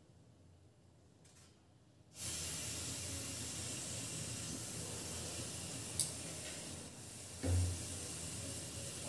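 Gas stove burner flame hissing steadily, starting suddenly about two seconds in. A sharp click about six seconds in and a short thump about a second and a half later.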